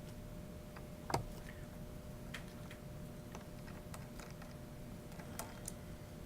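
Faint, scattered ticks and small clicks of a screwdriver backing out the long screw that fixes a Mac Mini's motherboard to its chassis, with one sharper click about a second in.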